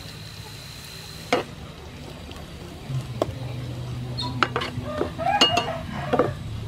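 Sliced lemongrass sizzling as it fries in oil in a non-stick frying pan, while a spatula stirs it, knocking and scraping against the pan. The knocks come one after another in the second half.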